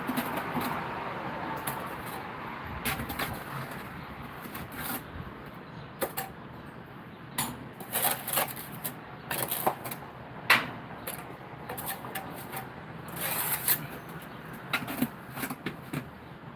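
Irregular clicks and knocks from hands and tools working on stone blocks, scattered through a steady background, the loudest about ten seconds in.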